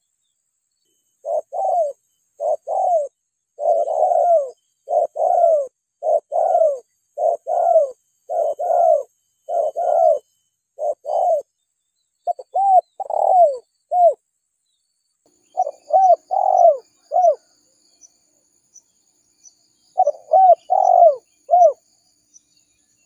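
Spotted dove cooing: a long run of repeated coos, each rising and then falling in pitch, then after a pause two shorter phrases near the end. Faint high chirping runs in the background.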